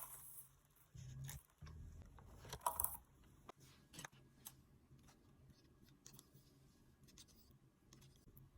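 Quiet handling of a seafood boil: scattered clicks, crackles and rustles, loudest in a brief crunchy cluster about three seconds in, over a faint low hum.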